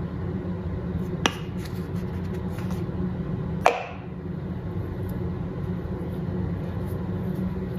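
A plastic cup knocking on a granite countertop as it cuts rounds from rolled dough: a light knock about a second in and a sharper one about halfway through, when the cup is set down on the counter. A steady low hum runs underneath.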